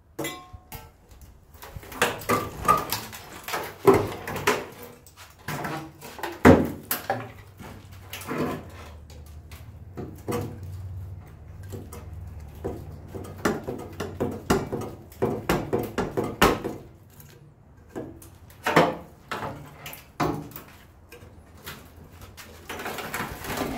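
Rusted sheet steel under a 1969 Ford F250's cab being bent and pried loose by hand: irregular metallic clanks, knocks and scraping, with a few louder knocks.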